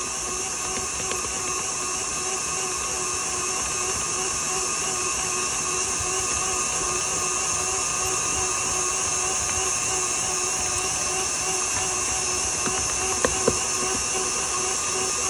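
KitchenAid Artisan stand mixer running steadily, its motor giving a constant whine as the dough hook kneads stiff bread dough in the steel bowl. Two brief knocks near the end.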